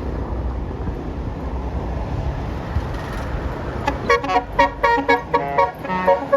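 Low bus engine and traffic rumble, then about four seconds in a Basuri telolet bus horn plays a quick tune of short notes at several pitches.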